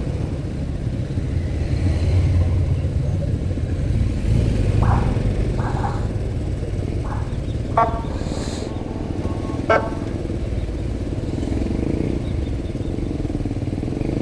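Motorcycle engine running steadily while stopped, with the rumble of passing vehicles swelling and fading. A few short high beeps sound around the middle.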